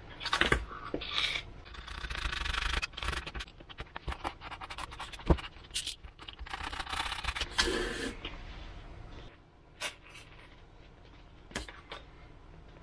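Foam model-aircraft parts being handled, rubbed and scraped on a wooden workbench, with scattered sharp clicks and knocks, and a utility knife working against the foam fuselage.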